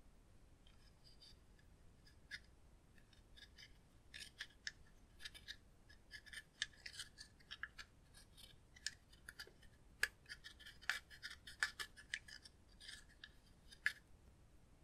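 A thin plastic tool scraping pressed eyeshadow powder out of a small plastic case, with light scratches and clicks against the case. The strokes come irregularly, sparse in the first few seconds and quicker and louder after about four seconds in.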